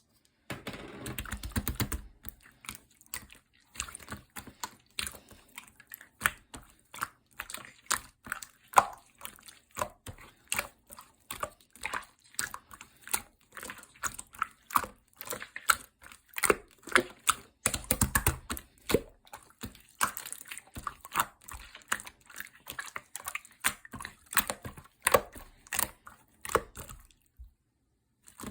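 Clear soothing-gel slime being squeezed, pressed and poked by hand, making a run of sticky wet clicks and small pops, about two to three a second. Denser, fuller squishing comes about a second in and again near the middle.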